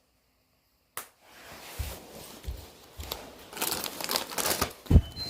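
About a second of silence, then a click and irregular rustling and crinkling noise, with a dull thump near the end.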